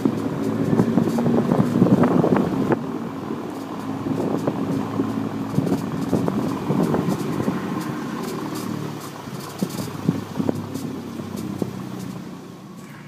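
Abarth car running at low speed with an engine hum and irregular short creaks and clicks from the rear, which the owner suspects come from the rear brakes or suspension. The sound fades toward the end.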